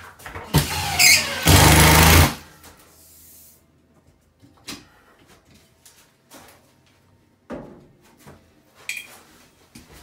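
Cordless drill driving a screw, its motor running in two spells for about two seconds just after the start. A few light clicks and knocks follow.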